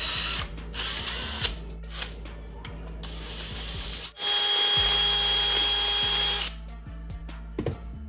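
DeWalt 20V cordless drill boring a hole through a scooter bracket: short bursts in the first second and a half, then one steady run of about two seconds from around four seconds in, the motor whining, before it stops.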